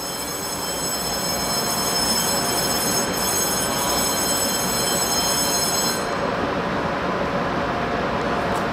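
Taiwan Railways EMU500 electric multiple unit standing at the platform, its onboard equipment running with a steady hum and a high whine that stops about six seconds in.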